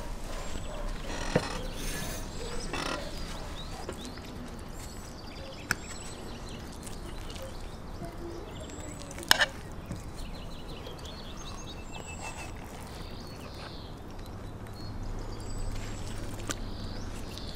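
Wooden spatula knocking and scraping on a large steel frying pan as the dish is cut and served, with a few sharp clicks, the loudest about nine seconds in. Small birds chirp now and then in the background.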